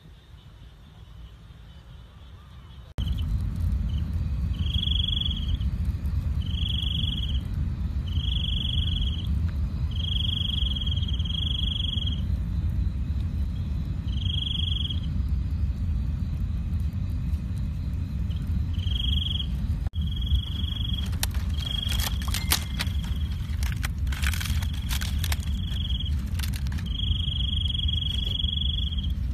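Night insects calling in repeated high-pitched trilling bursts, each about a second long, over a steady low rumble; both start suddenly about three seconds in. A cluster of sharp crackles comes about three-quarters of the way through.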